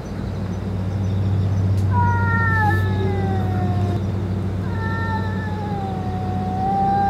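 Stray cats caterwauling in a face-off, a threat between two cats: two long, slowly falling yowls, the first about two seconds in and a longer one from about the middle, over a steady low hum.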